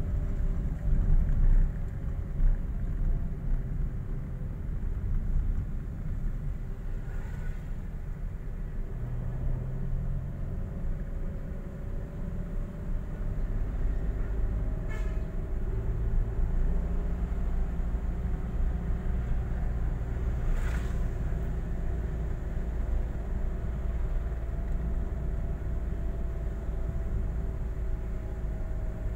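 Car cabin noise while driving slowly in traffic: a steady low engine and road rumble with a faint wavering hum, and a few faint ticks.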